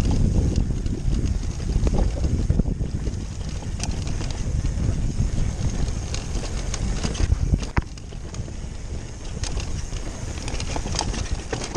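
Wind buffeting the microphone of a mountain bike riding down a dirt singletrack, with the tyres rolling over the trail and scattered clicks and knocks from the bike over bumps. A sharp knock comes about eight seconds in, after which the rumble is quieter.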